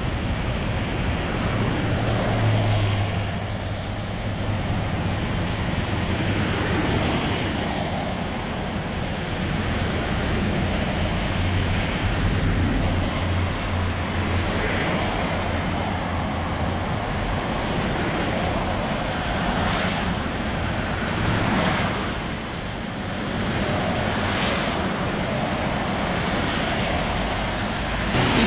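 Traffic passing on a rain-soaked road: tyres hissing through standing water in slow swells as each vehicle goes by, with the low hum of truck and car engines under a steady wash of noise.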